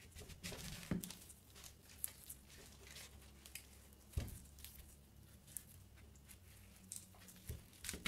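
Knife blade scraping and crunching into the tough, knobbly skin of a raw elephant foot yam on a wooden cutting board, quiet, with scattered small clicks. A soft knock about four seconds in comes as the yam is turned on the board.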